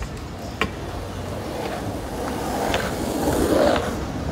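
Outdoor street ambience: a steady low rumble, a single sharp click about half a second in, and a louder rolling rush that swells around three seconds in, like something on wheels passing close by.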